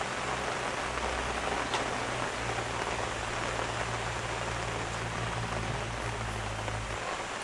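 Steady rain, an even hiss of falling drops, with a low hum underneath that stops near the end.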